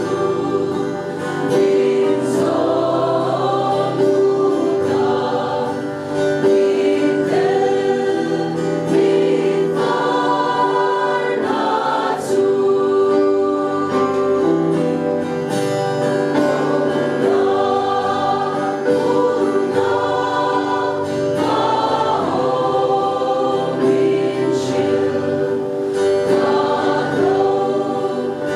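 A mixed church choir of men and women sings a hymn in Mizo, accompanied by a strummed acoustic guitar.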